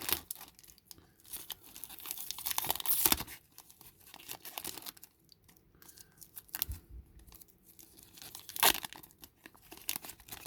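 Magic: the Gathering collector booster pack's foil wrapper being torn open and crinkled, and the cards handled: irregular bursts of rustling, loudest about three seconds in, with a sharp crackle near the end.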